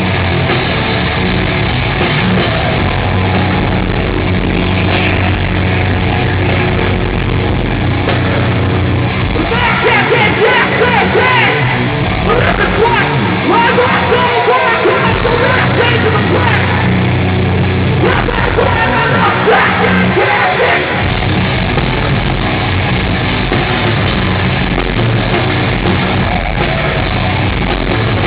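A heavy rock band playing live: loud, dense guitars and drums throughout, with yelled vocals over the middle stretch.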